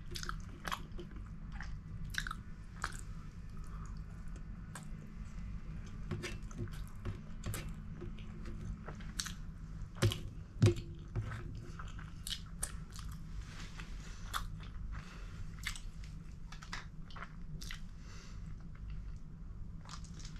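Close-up chewing and mouth sounds of a person eating by hand, many small wet clicks and crunches, over a steady low hum. There are two louder knocks about halfway through.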